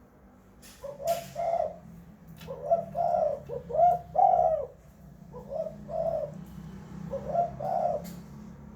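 Spotted dove (tekukur) cooing: several repeated phrases of two or three low, rounded notes, with short pauses between them, over a steady low hum.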